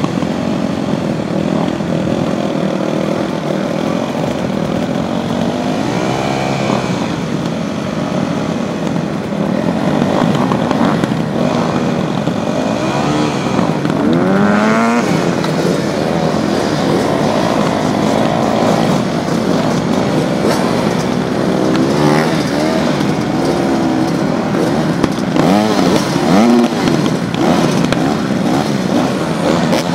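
Several motocross bike engines idling and revving, their overlapping pitches rising and falling.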